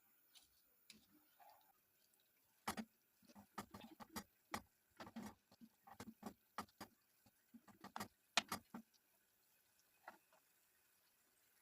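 Light, irregular knocks and clicks of cooking utensils being handled, a couple to several a second, starting about three seconds in and stopping about nine seconds in.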